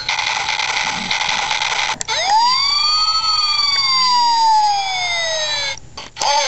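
Electronic sound effects from a Transformers Optimus Prime toy's built-in sound chip. A harsh hissing blast lasts about two seconds, then swooping sci-fi tones glide up and down in a siren-like way and cut off shortly before the end.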